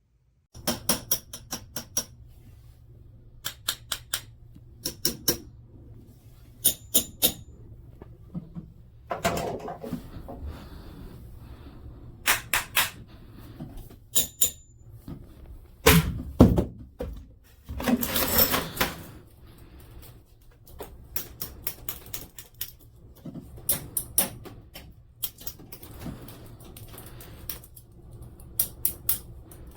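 Hard objects being handled: repeated quick clusters of sharp clicks and knocks over a low steady hum, with longer scraping rustles about nine seconds in and again around eighteen seconds.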